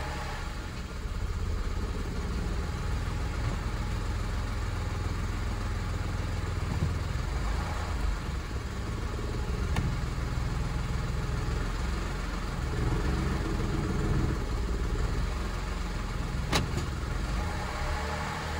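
2007 Lexus IS250's 2.5-litre V6 idling steadily in drive, heard from inside the cabin as a low, even rumble. A brief click sounds near the end.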